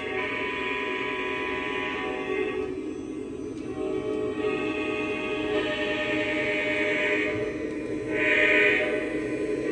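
Background music of sustained, choir-like chords, changing every couple of seconds, with a brighter swell near the end.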